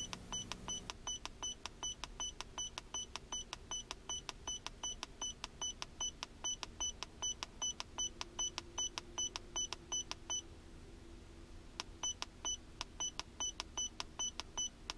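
MaxiDiag Elite OBDII scan tool beeping, a short high beep with each step down its live-data list, about four a second. The beeping stops for about a second and a half near two-thirds of the way through, then starts again.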